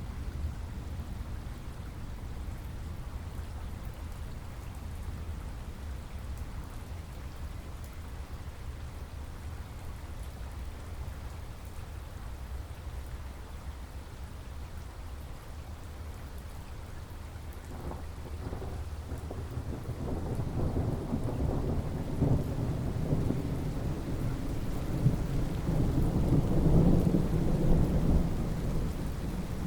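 Steady rain falling, with a long rolling thunder rumble that builds from about two-thirds of the way in, peaks near the end and then begins to fade.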